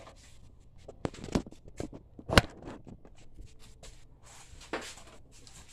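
Scattered sharp plastic clicks and knocks from handling a spring-powered airsoft pistol, one much louder knock about two and a half seconds in.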